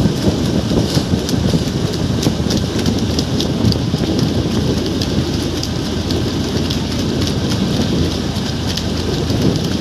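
Loud, steady rush of wind buffeting the microphone and water on a moving motorboat, with a fast crackling spatter of spray.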